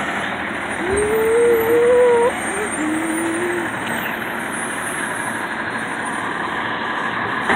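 Automated side-loader garbage truck's diesel engine running as the truck pulls up and stops beside the trash carts. About a second in comes a high squeal lasting just over a second, then a shorter, lower one.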